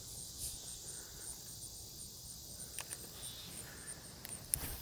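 Insects chirping steadily in a high, even pulse of about three chirps a second, with a few sharp clicks about three seconds in and near the end.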